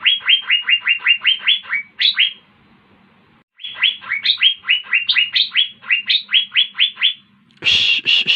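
Asian fairy-bluebird (cucak biru) singing: two rapid runs of quick downward-sweeping whistled notes, about six a second, with a pause of about a second between them. Near the end comes a short harsher call.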